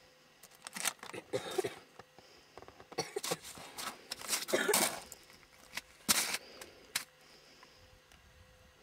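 Irregular crunches, scrapes and clicks of a person moving about on icy snow: boots shifting and stepping, and gear being handled at a wooden sled.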